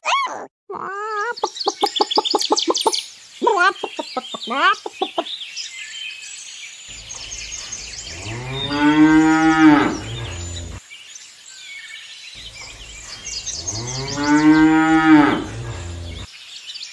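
Cow mooing: two long moos, each rising then falling in pitch, the first about seven seconds in and the second about twelve seconds in, over steady bird chirping. In the first five seconds there are several short, high, wavering animal calls.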